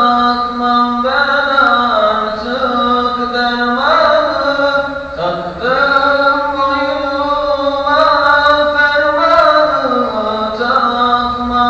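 A solo male voice chants an ilahi, a Turkish Islamic hymn, unaccompanied and sung through a handheld microphone. The long held notes are ornamented, sliding and bending in pitch, with brief breaths between phrases.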